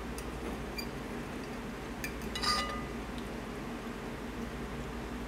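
A metal fork clinking against a plate a few times, the clearest clink about two and a half seconds in with a short ring, over a steady low hum.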